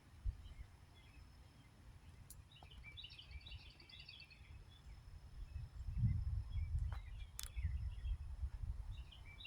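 Songbird singing: a quick run of high chirping notes about two and a half seconds in, with shorter chirps later, over a low rumbling outdoor background that grows louder about six seconds in.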